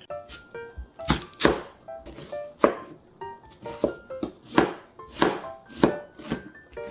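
Kitchen knife cutting an onion and striking a cutting board: about ten separate chops starting about a second in, roughly half a second apart. Light background music with short chiming notes plays underneath.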